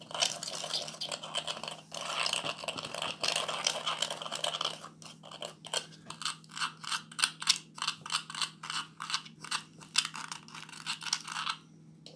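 Baking soda and food dye being stirred in a container, a utensil scraping and crunching through the powder. At first the scraping is continuous, then it turns to quick even strokes, about three a second, stopping shortly before the end.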